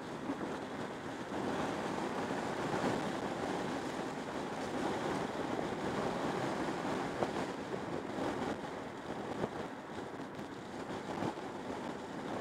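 Wind rushing in through an open car window, mixed with tyre and road noise from a car moving at highway speed: a steady rushing noise.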